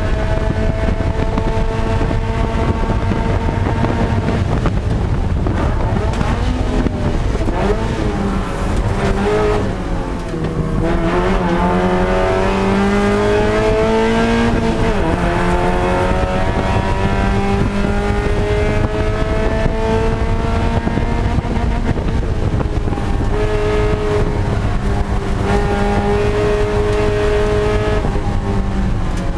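Spec Miata race car's four-cylinder engine heard from inside the cockpit, running hard at racing speed over steady wind and road noise. The engine's pitch dips and wavers about ten seconds in, then climbs steadily for several seconds as the car accelerates.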